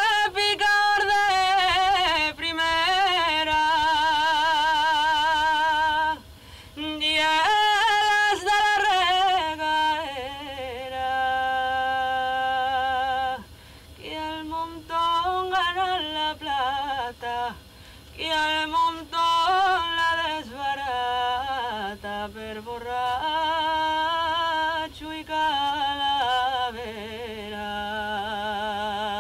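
A solo voice singing a slow song in long held phrases, with wide vibrato and ornamented turns on the notes and short breaths between phrases.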